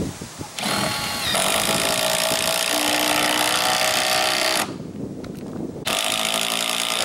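Cordless impact driver driving mounting bolts, its motor whine mixed with a rapid hammering rattle as it tightens. It runs for about four seconds, stops, and starts again near the end on the second bolt.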